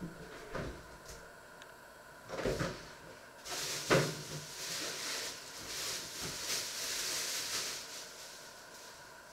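Kitchen handling noises: three knocks, like cupboard doors or utensils being set down, the loudest about four seconds in, then a few seconds of hissing that fades out.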